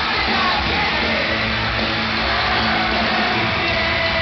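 Live pop band music playing over an arena's sound system, heard from high in the stands as a steady, muddy wash.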